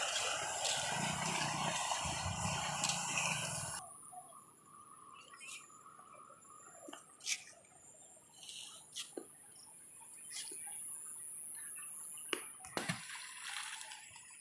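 Rushing water of the flooded Rushikulya river, an even loud rush that cuts off abruptly about four seconds in. After it come quiet surroundings with scattered clicks and a faint steady whine.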